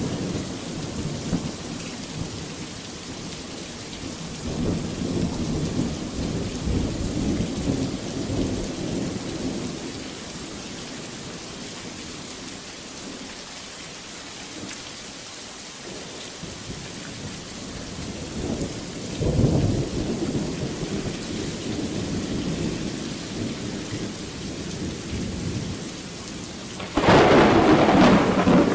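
Thunderstorm: steady heavy rain with low rolling thunder through the first ten seconds and a stronger rumble about two-thirds of the way through. Near the end a sudden, loud thunderclap is the loudest sound.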